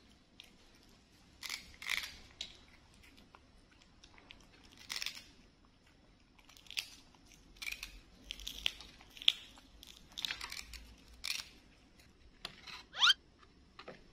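Pet monkeys chewing and smacking on soft cake: irregular, quick, crackly eating noises. A short rising squeak comes near the end.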